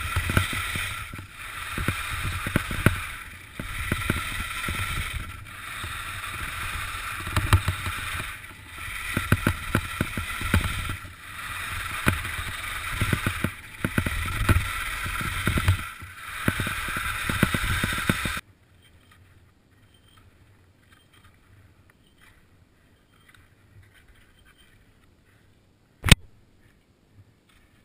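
Skis scraping over snow through a series of turns, the noise swelling and fading about every second and a half. About eighteen seconds in it stops abruptly, leaving near quiet with one sharp click near the end.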